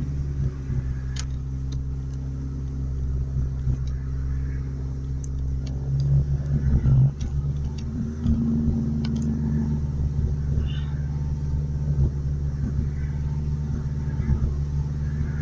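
Truck engine idling steadily, with a brief surge in level about six to seven seconds in and a slight change in pitch just after. The owners blame its rough running on a blocked muffler creating back pressure.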